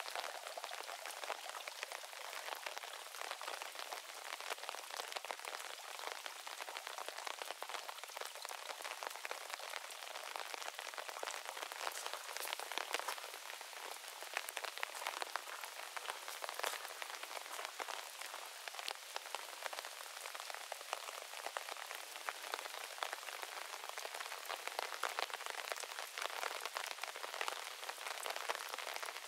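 Steady rain falling on a moss garden and its plants: an even hiss of rainfall with many separate drop ticks.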